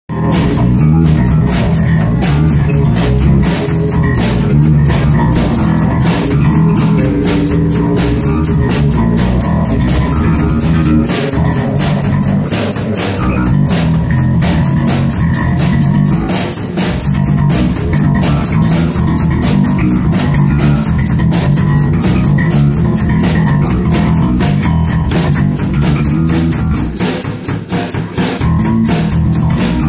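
Rock band playing live: a drum kit keeping a steady beat with cymbals, under an electric bass line.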